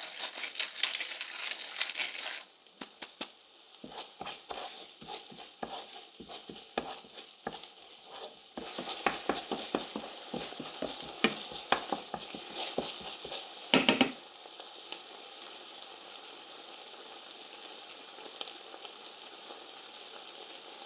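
Onion, garlic, mustard and honey sauce sizzling in a nonstick frying pan while a wooden spoon stirs it, clicking and knocking against the pan for several seconds. After a louder knock about fourteen seconds in, only the steady sizzle of the bubbling sauce remains.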